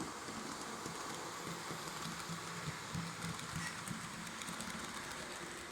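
H0 scale model train running on the layout's track: a low electric motor hum that comes and goes over a steady rolling hiss, with light clicks from the wheels.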